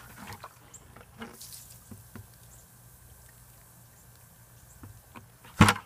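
Water dribbling and dripping from a white plastic bucket as it is tipped up, with small scattered taps, then one loud thump near the end as the bucket comes down on the ground.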